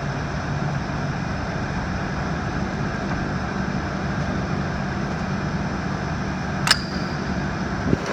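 Steady workshop background hum with a low droning tone, and one sharp click about two-thirds of the way through, metal pump parts knocking together as they are handled.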